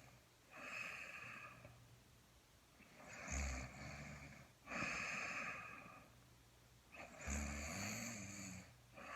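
A sleeping man snoring: two rumbling snores on the in-breath, about three and seven seconds in, each followed by a long breathy out-breath, repeating every three to four seconds.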